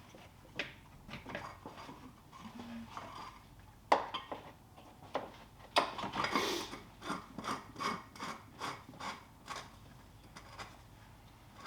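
Ratchet and socket clicking and knocking as the oil filter housing cap goes back into the engine, a run of sharp clicks at about two or three a second in the second half, with one louder knock about four seconds in.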